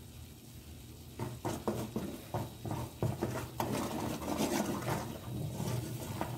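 Wooden spoon stirring and scraping melted butter and corn flour in a copper pan as the flour is toasted for kuymak. Irregular scrapes and knocks start about a second in.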